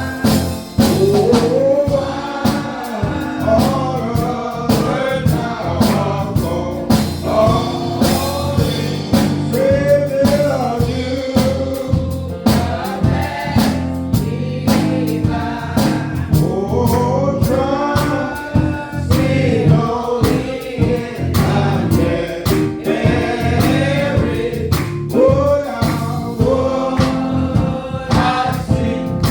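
Gospel choir singing with instrumental accompaniment: a steady bass line and regular drum beats.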